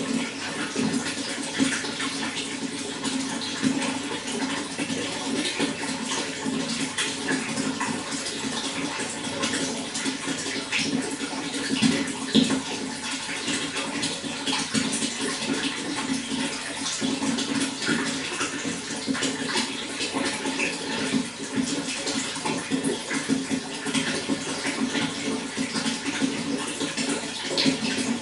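Running water: a steady, unbroken rush of flowing water with many small splashes throughout.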